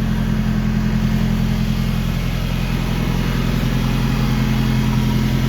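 Toyota 4K inline-four engine idling steadily after a carburetor repair, its idle set a little high.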